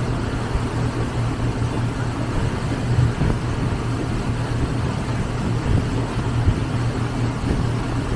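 Boat engine running at a steady low drone while under way, with a constant rush of wind and water over it.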